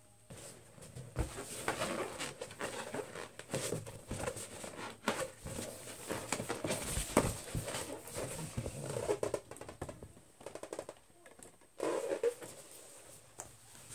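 Inflated latex balloons being handled, rubbing and squeaking against each other and against fingernails, with scattered taps and rustles and a few short squeaks.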